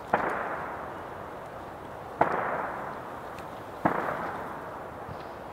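Distant gunshots from target shooting, three sharp pops about two seconds apart, each followed by a long rolling echo that fades away.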